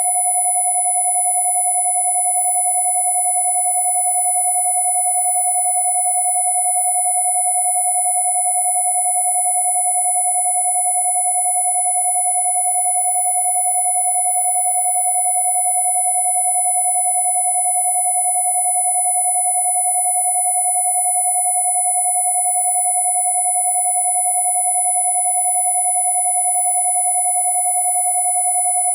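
Two steady electronic sine tones held together without a break, as used for Rife frequencies: a 727 Hz tone and a very high 10,000 Hz tone.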